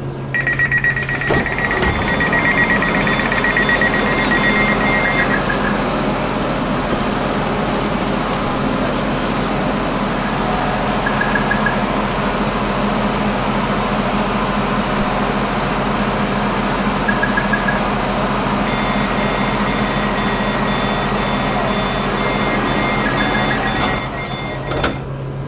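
Passenger train running, heard from inside the carriage: a steady rumble and rattle with a constant low hum, and a high steady squeal in the first five seconds and again in the last several, with short high squeaks in between.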